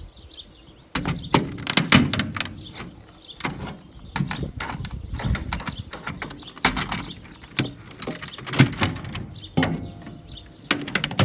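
Old, brittle plastic escape hatch frame being pried off a school bus's roof: repeated cracks, knocks and scraping, starting about a second in.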